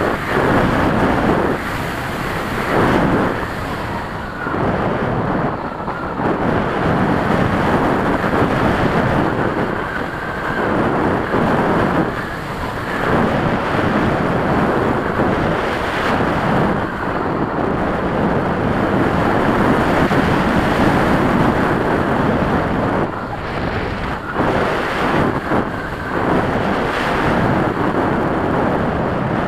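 Loud wind rushing and buffeting over the microphone of a camera mounted on the wing of a flying radio-controlled model airplane, swelling and easing every few seconds as the plane maneuvers.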